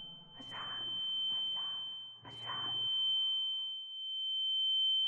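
Sound-design effect for a vision: a steady high-pitched ringing tone, with swells of whooshing noise rising and falling about every two seconds. A lower tone joins about four seconds in.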